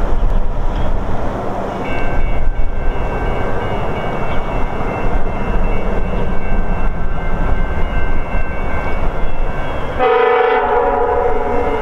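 Low, steady rumble of an approaching VIA Rail GE P42DC diesel passenger locomotive. About ten seconds in, its air horn sounds one blast of several tones at once, lasting about two seconds.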